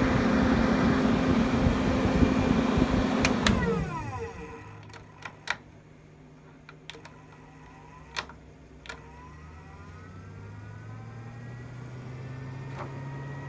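Fan-Tastic Vent 12-volt roof vent fan running loud and steady, then clicked off about three seconds in and spinning down with a falling hum. After a few scattered clicks, a fan motor slowly speeds up again with a quieter hum that rises in pitch toward the end.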